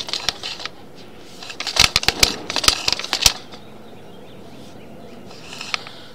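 A quick run of sharp clicks and knocks, bunched between about one and a half and three and a half seconds in, from a sewer inspection push camera and its push cable as they are fed along the drain pipe.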